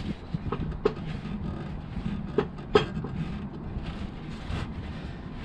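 Scattered sharp metallic clicks and clunks from hands-on work on a truck's transmission and torque converter, over a steady low hum.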